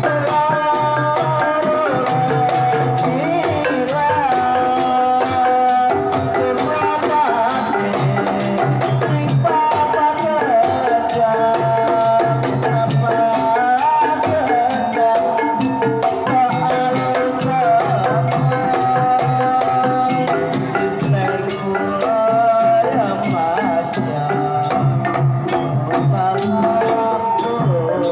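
Javanese Banyumasan gamelan playing a tayub piece: kendang hand-drum strokes drive the rhythm over ringing gongs and bronze metallophones. A sinden sings a wavering, ornamented female vocal line over the ensemble.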